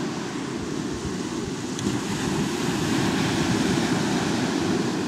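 Wind buffeting the camera microphone: a steady, low, unevenly fluttering rush.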